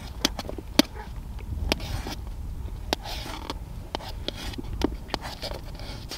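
Folding knife slicing through a cooked sausage, the blade clicking sharply against a metal baking tray with each cut. There are about a dozen clicks at uneven intervals.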